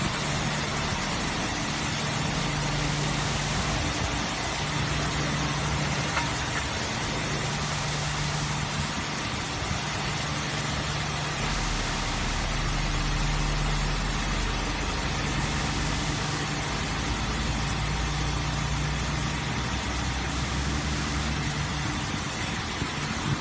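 Heavy diesel truck engine running at low speed as the truck creeps forward, under the steady hiss of high-pressure water spray from a touchless truck-wash gantry. The low engine hum shifts in pitch every few seconds.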